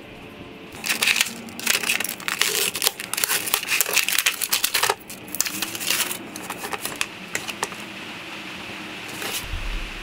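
Crinkling and rustling of packaging being handled, a dense run of crackles that starts about a second in and thins out after about six seconds.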